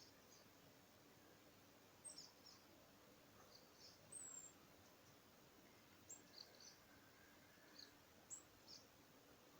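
Faint, scattered high-pitched chirps of small garden birds, starting about two seconds in, with one short falling whistle about four seconds in.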